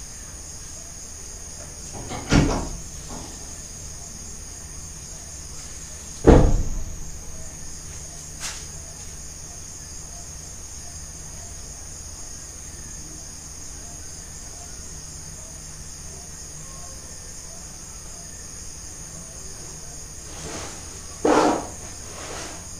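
Crickets chirping steadily, with three dull thumps about 2, 6 and 21 seconds in, the middle one the loudest, and a faint click shortly after it.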